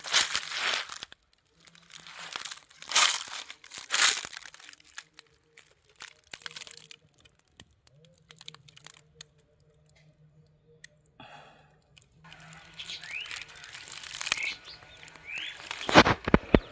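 Footsteps crunching on dry leaf litter: a few steps at the start, a quiet pause, then more steps near the end. A bird chirps briefly during the pause.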